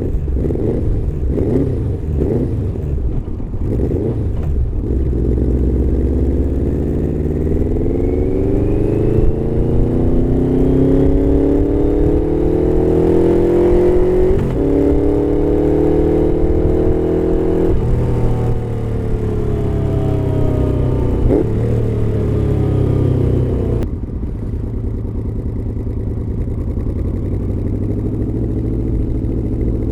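Yamaha V-Max 1200's V4 engine through a Supertrapp slip-on exhaust. The engine note climbs slowly in pitch for several seconds, holds high with a few sharp breaks, then falls away. About three-quarters of the way through it drops suddenly to a lower, steady running note.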